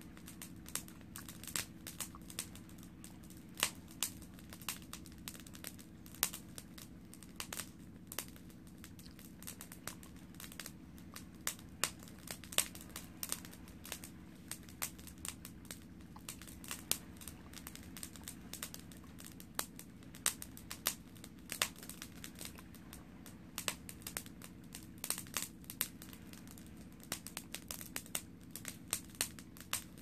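Wood fire crackling and popping in a metal fire basket: irregular sharp snaps, sometimes several a second, over a faint steady low hum.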